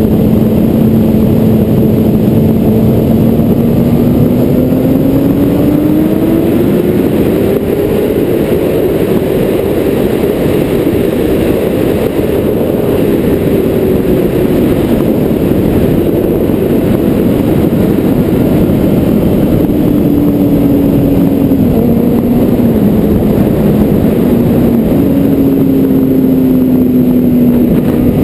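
A car engine running while driving, over heavy road and wind noise. The engine note climbs steadily for several seconds about a quarter of the way in, eases back down, then shifts in a few small steps in the later part.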